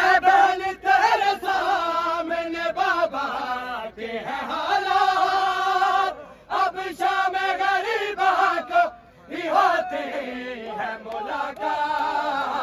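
A large group of men chanting a Shia noha, a mourning lament, loudly in unison, holding long strained notes. The chant breaks off briefly twice, about six and nine seconds in.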